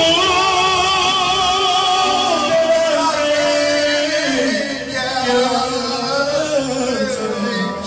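Men singing into microphones over a live band, with long held notes that waver in pitch.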